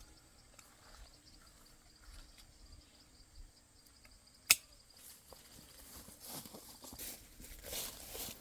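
Outdoors in vegetation, insects chirp faintly and steadily. A single sharp snap comes about halfway through. Rustling and crunching noises, such as steps through dry leaves or brush, start near the end.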